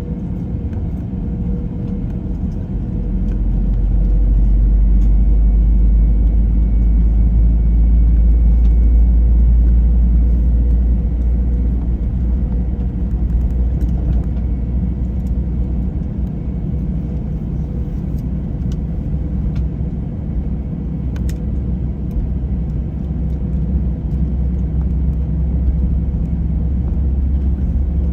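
Jet airliner cabin noise aboard an Airbus A321: engines running with a deep rumble that swells about three seconds in and eases slightly after about eleven seconds.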